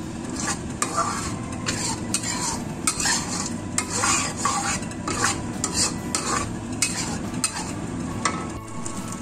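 A spatula stirring and scraping thick spice paste around a wok in irregular strokes over a steady sizzle. The paste is blended shallots, garlic, candlenut and dried shrimp, with its water cooked off, frying slowly in oil.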